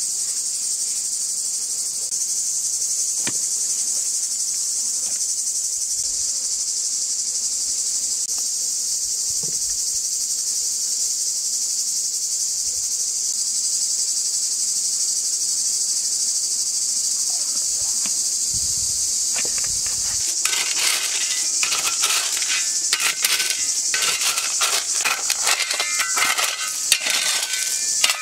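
Steady high chirring of insects throughout. From about two-thirds of the way in, a dense run of sharp scrapes and clinks: a metal digging tool biting into gravel and the soil under it, stones knocking together.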